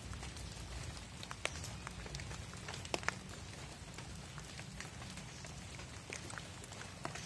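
Cat chewing on a snake: scattered small crunching clicks, a sharp pair about three seconds in, over a steady low rumble.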